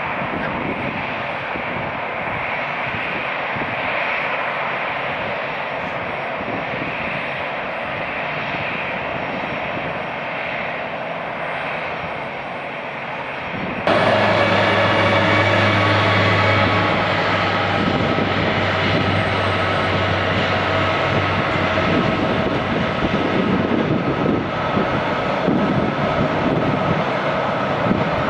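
Jet airliner engines running with a steady roar. About halfway through the sound jumps abruptly to a louder roar that carries several steady whining tones and a low hum.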